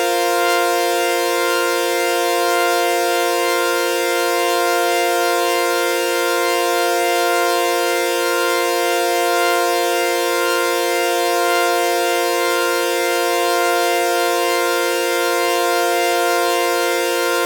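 Synthesized sawtooth-wave F suspended-fourth chord (F, B-flat, C) held as one steady, buzzy drone with a slow, gentle wobble in loudness.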